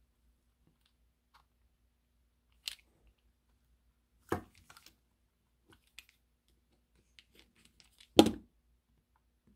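Small clicks and knocks of a tiny screwdriver and the parts of a Ringfield pancake motor being handled as it is taken apart, with sharper knocks about three and four seconds in and the loudest knock about eight seconds in.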